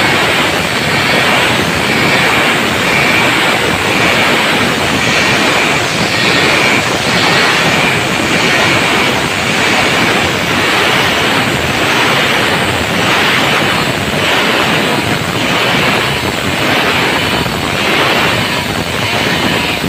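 Stihl two-stroke chainsaw running at high revs under load, ripping lengthwise along the grain of a log. The engine note rises and falls slightly about once a second in the later part.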